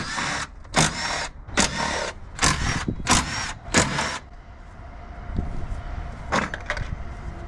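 A tool working the mounting nuts of a Suzuki Cappuccino's strut bar loose: six short bursts less than a second apart, then a single one near the end.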